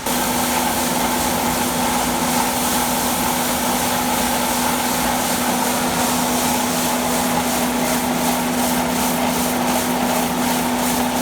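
Grain-handling machinery running steadily: a loud, constant mechanical hum with a steady higher whine over a hiss of moving grain and air.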